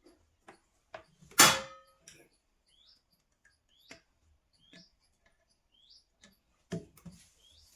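Handling noise: scattered small clicks and knocks, with one loud clattering impact that rings briefly about a second and a half in. Short rising chirps repeat faintly every second or so.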